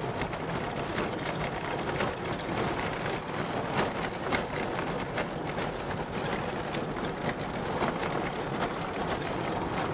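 Vehicle driving fast on a rough, corrugated dirt track: steady road and engine noise with constant small rattles and knocks from the bumpy ride.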